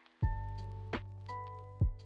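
Background music comes in a moment after the start: held notes over a deep bass line, with a few sharp drum hits.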